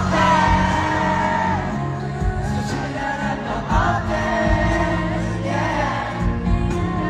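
Live concert music with a held, gliding melody over a steady bass, from a sound check.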